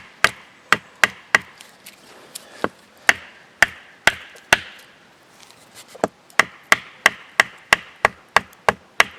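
Repeated sharp wooden knocks, about two to three a second, in runs with a short pause about halfway: a wooden stake being pounded into the ground.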